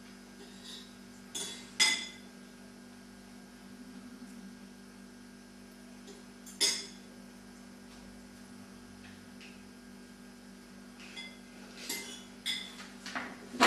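Cutlery clinking against plates during a meal, with a few sharp clinks: two close together a couple of seconds in, one more in the middle, and a cluster near the end. A low steady hum runs underneath.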